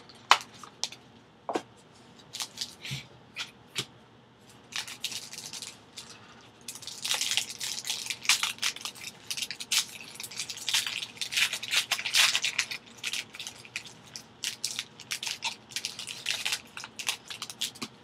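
Handling of a cardboard trading-card box, with a few sharp clicks and taps, then from about seven seconds a plastic baseball-card pack wrapper crinkling and tearing as it is opened.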